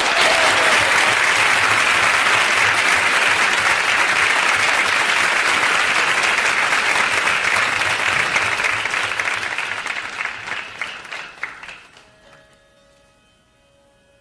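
Studio audience applauding, strong and steady. The applause thins to scattered claps and dies away about twelve seconds in.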